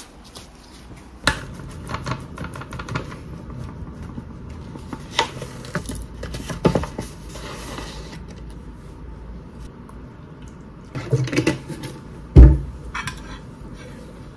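Kitchen handling sounds: a metal spoon clinking and scraping in a ceramic baking dish and a starch bag, with scattered knocks of things being set down. The loudest is one heavy knock about twelve seconds in.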